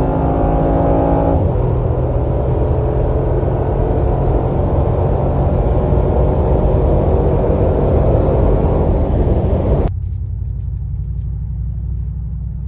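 Mercedes-AMG G63's twin-turbo V8 under load at Autobahn speed. Its engine note is clear for about the first second and a half, then merges into a loud, steady rush of wind and tyre noise. Near the end the sound drops suddenly to a quieter low rumble.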